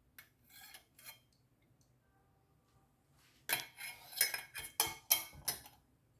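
A spoon stirring a drink in a cup, clinking against the sides about three times a second, starting a few seconds in.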